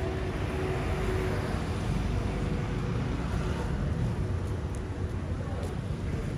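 Street traffic: a steady wash of car and road noise, swelling slightly as vehicles pass.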